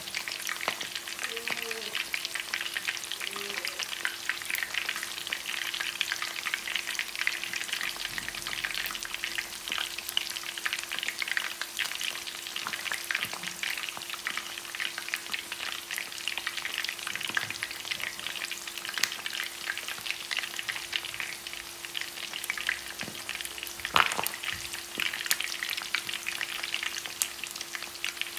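Whole pork hock deep-frying in hot oil: steady sizzling with dense crackling pops, and one louder pop about three-quarters of the way through. A faint steady hum runs underneath.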